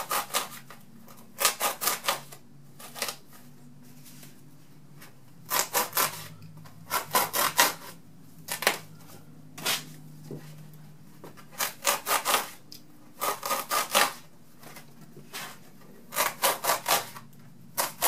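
A knife sawing V-shaped notches out of a foam pool noodle: short runs of quick back-and-forth cutting strokes, about six runs a few seconds apart.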